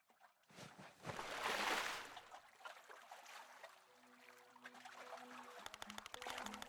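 Rushing water swelling up and fading away over about two seconds. Soft music then comes in with low held notes, and a fast ticking rhythm joins near the end.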